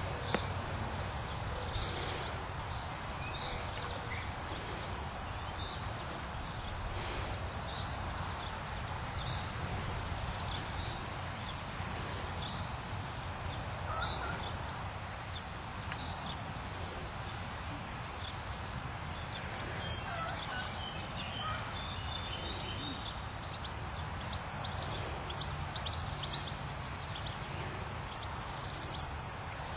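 Steady wind on the microphone outdoors, with faint short high chirps every second or two that become more frequent in the last third.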